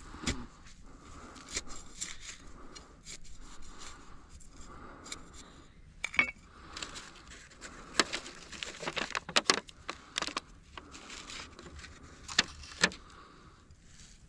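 Irregular clicks and clattering of small hard objects being handled, with light rustling between them; the sharpest knocks come about six, eight and twelve-and-a-half seconds in.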